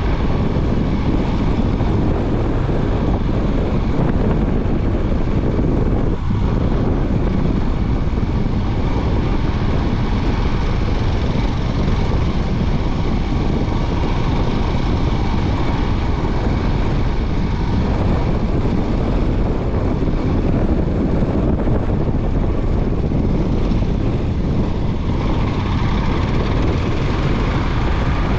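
Royal Enfield Himalayan 411's single-cylinder engine running steadily under way, heard as a loud, continuous ride sound.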